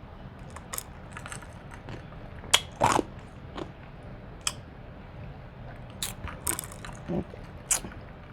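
Close-miked eating of a seafood boil: chewing with irregular short wet smacks and sharp clicks, the loudest about three seconds in.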